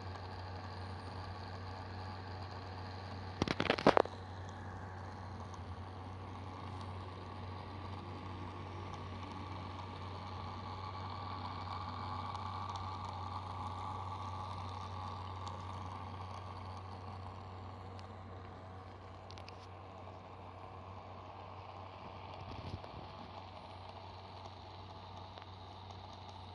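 Steady low hum of a running vehicle with a broad whooshing noise that swells and fades, a brief burst of sharp clicks about four seconds in, and a single faint knock near the end; recorded as an abnormal noise (異音) of the A1.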